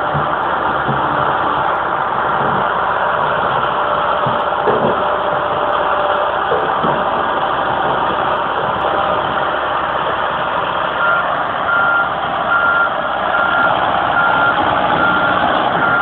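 Komatsu tracked excavator's diesel engine running steadily while it works a boulder, with a few knocks about a third of the way in. From about two-thirds of the way in, its travel alarm beeps about twice a second as the machine moves.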